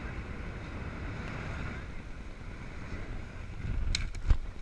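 Wind buffeting the microphone over surf washing below the pier. Near the end, a few sharp clatters and one heavy thump on the wooden deck as the gaffed king mackerel is hauled onto the pier.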